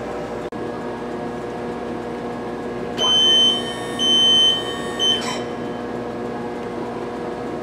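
Two electronic beeps, each about half a second long and about a second apart, over a steady machine hum.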